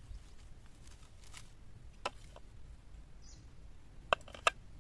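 A few sharp crackles from charred, dry pumpkin leaves being peeled back by hand off leaf-baked fish, over a low steady rumble. A brief high bird chirp a little past the middle.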